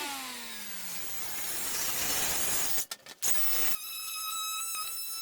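An electric power tool's motor spinning down with a falling whine, then a rush of hiss, then about two seconds later a steady high-pitched whine.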